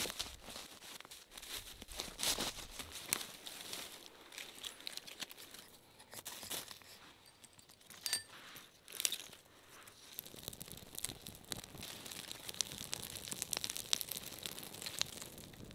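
Dry pine needles and debris scraped aside underfoot, then dry bark and twigs crinkling and snapping as a small campfire is lit and fed, with the first flames crackling in the later part.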